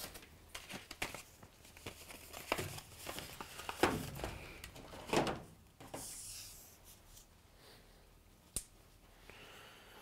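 Packaging crinkling and tearing as a new washing machine drive belt is unwrapped and handled, with scattered light clicks and knocks.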